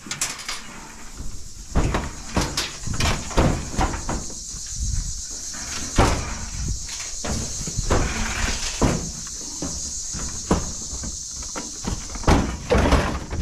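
Thin sheet-aluminium sign cabinet being handled and shifted, giving irregular hollow clunks, knocks and scrapes of metal, loudest about six seconds in and again near the end.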